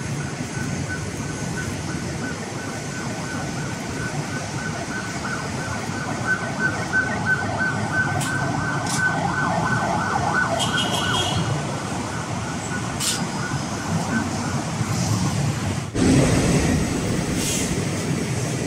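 City street traffic with an emergency-vehicle siren sounding as a steady high tone over the road rumble, fading out after about 14 seconds. A sudden, louder low rumble starts near the end.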